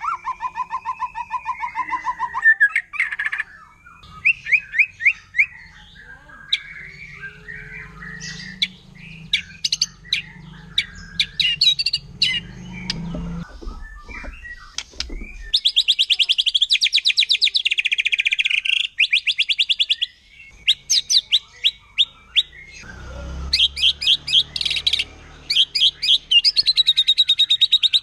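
Wild white-rumped shama singing a varied song of whistles and sharp chips, broken by long rapid-fire trills of repeated notes, the aggressive 'shooting' song.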